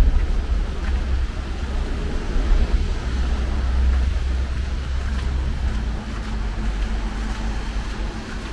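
Steady road traffic noise from the bridge approach behind a roadside noise barrier, mixed with the hiss of rain. A deep low rumble eases off about six seconds in, and a faint steady engine-like hum continues.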